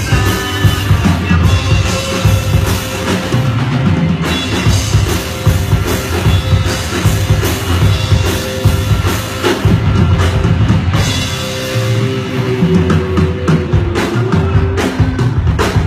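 Live rock band playing loud, with a pounding drum kit and electric guitars.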